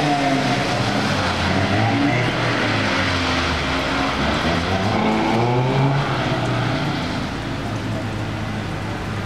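Scion FR-S flat-four engine revving up and down as the car is driven hard through autocross cones on wet pavement. The engine note fades about seven seconds in, leaving steady rain hiss.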